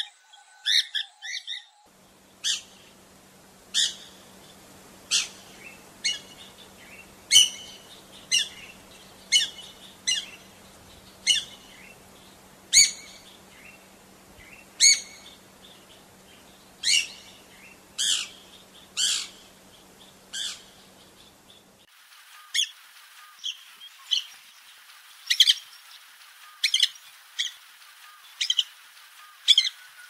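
Piapiac (black magpie) calling: a series of short, sharp, high-pitched calls, a little more than one a second. The recording changes about two seconds in and again about two-thirds of the way through.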